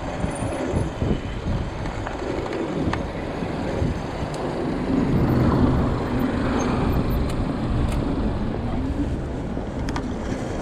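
City street traffic: vehicles running past, with a heavier one passing loudest about halfway through.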